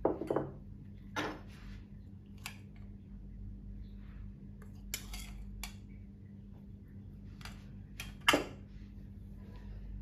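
Kitchen bowls and utensils clinking and knocking against a pot and tabletop while ingredients are added: a string of separate sharp clinks, the loudest at the start and about eight seconds in.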